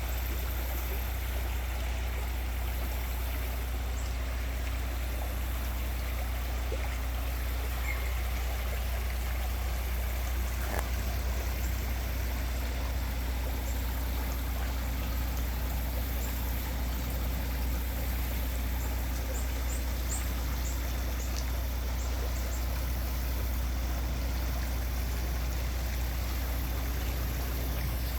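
River water rushing steadily, over a constant deep low rumble. A few faint high chirps come through about two-thirds of the way in.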